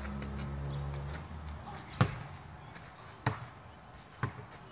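A basketball bouncing on a dirt-and-gravel driveway: three sharp bounces about a second apart, the first the loudest.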